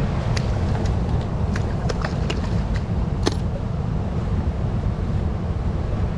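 Steady low rush of fast-flowing river water, with several sharp clicks and taps in the first half.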